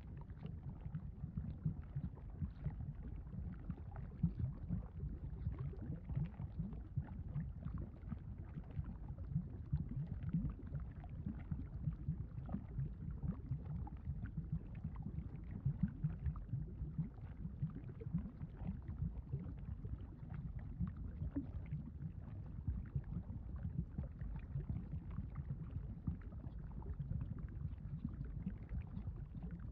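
Lava sound effect: a steady low rumble with constant, irregular bubbling pops.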